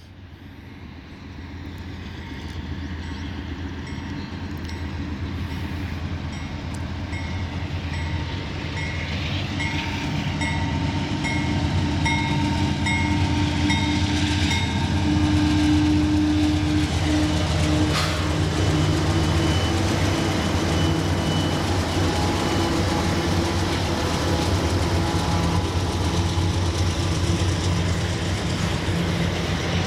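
Canadian Pacific diesel locomotives approach and pass, their engines growing louder over the first ten seconds or so. Double-stack container cars then roll by with steady wheel noise and a single clank about eighteen seconds in. A level-crossing bell pings steadily, about one and a half strokes a second, through the first half.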